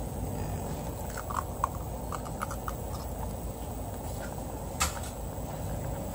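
A steel pot of instant noodles simmering on the stove, bubbling steadily, with small pops and crackles in the first few seconds. One sharp click comes about five seconds in.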